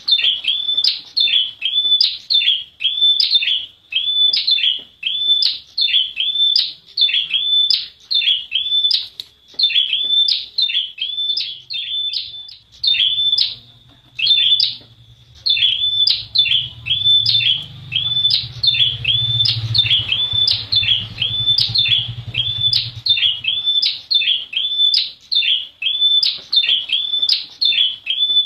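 Prenjak wulung, a small prinia, calling nonstop: a sharp, high chirp repeated about twice a second, with a brief break about halfway through. A faint low rumble runs underneath through the middle.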